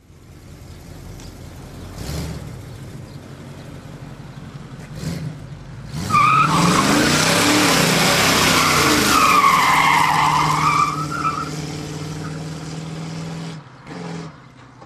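Ford Mustang Mach 1 V8 running and revving, then doing a burnout about six seconds in: the rear tyres squeal loudly over the revving engine for about five seconds. After that the engine settles to a steadier note and fades near the end.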